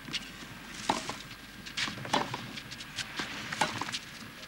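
Sharp, irregular knocks of a tennis ball, struck by rackets and bouncing on the clay court, about eight in a few seconds over a low crowd murmur.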